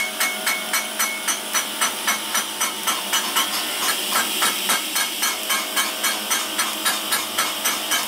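Pulsed TIG welding arc on a titanium exhaust silencer: a steady hiss that beats evenly about five times a second.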